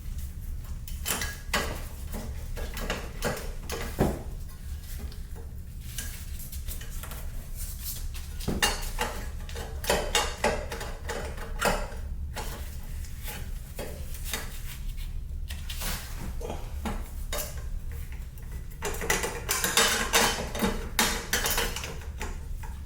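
Irregular metallic clanks, knocks and rattles as a dirt bike's exhaust is twisted and tugged loose from the frame, with a busier run of clatter near the end as it comes free.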